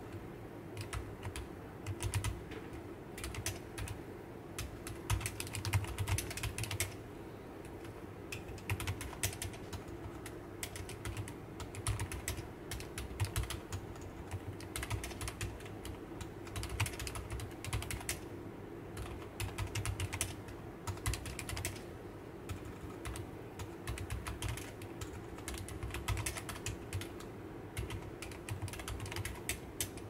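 Continuous typing on a 7sPro keyboard fitted with Yushakobo Fairy silent linear switches and Keychron double-shot PBT keycaps. The keystrokes are soft, muted clicks with low thuds, falling in an uneven stream.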